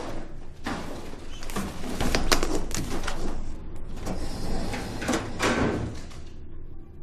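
Metal sliding and clattering: a run of scrapes and sharp knocks over several seconds, loudest a little after two seconds in.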